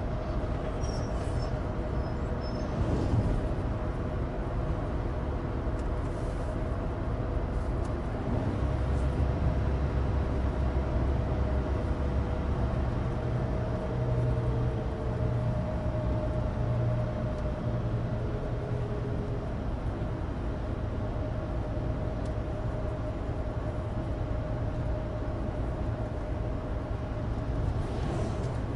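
Inside the cabin of a Suzuki Alto Turbo RS (HA36S) on the move: its small turbocharged three-cylinder engine and the road noise of studless winter tyres on dry tarmac make a steady drone. A low rumble swells about eight seconds in and eases again after about twenty.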